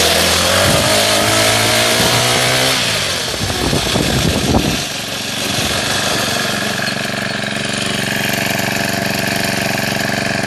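Honda GX35 35cc four-stroke engine running, its pitch rising over the first few seconds. It runs unevenly for a couple of seconds, then settles into a steady idle.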